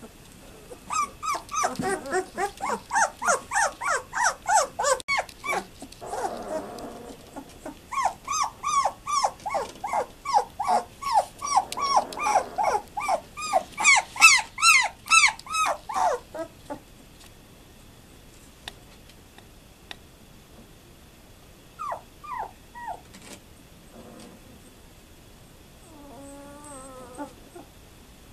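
Litter of 12-day-old German Shepherd puppies crying: a fast run of high, rising-and-falling squeals, about three a second, that breaks off about halfway through. Only a few scattered squeaks follow as the pups settle.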